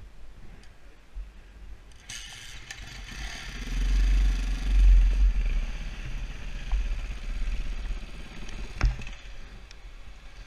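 Husaberg 450FE single-cylinder four-stroke enduro engine starting up about two seconds in and running, with a deep surge of revs around the middle before settling. A single sharp knock near the end.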